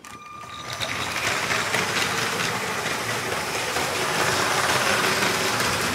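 Intro sound effect: a dense rushing noise flecked with many small clicks, building over the first second and then holding steady.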